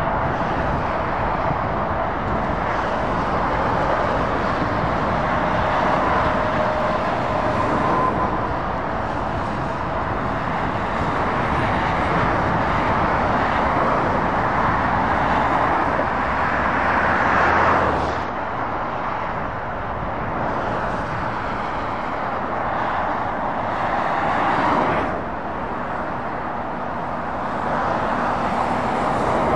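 Motorway traffic: lorries and cars passing, a steady rush of tyre and engine noise that swells as each vehicle goes by. The two loudest passes come about 17 and 25 seconds in, and each drops away sharply.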